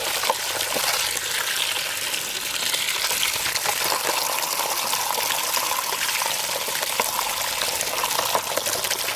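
A steady stream of water pouring down and splashing onto a plastic toy ambulance and into a shallow muddy puddle, a continuous even hiss.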